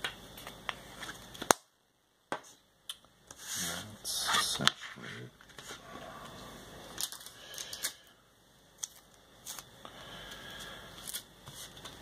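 Paper and card being handled and slid about on a tabletop: rustling and scraping with several sharp clicks, the loudest click about a second and a half in.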